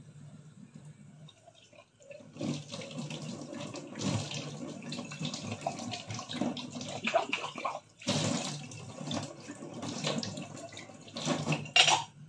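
Kitchen tap running into a stainless steel sink while glasses and mugs are rinsed under it, the water splashing off them, with scattered light clinks of glassware. It is quiet for the first two seconds, then the splashing picks up and surges louder several times.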